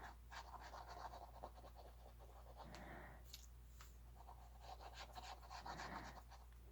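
Faint scratching and rustling of paper being handled while working on a handmade paper journal, in two or three spells, over a steady low hum.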